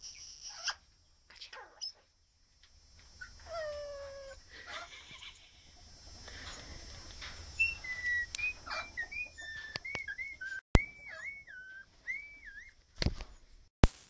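Male Australian king parrot giving a run of short whistled chirps that rise and fall in pitch, strongest in the second half, with a couple of sharp clicks near the end.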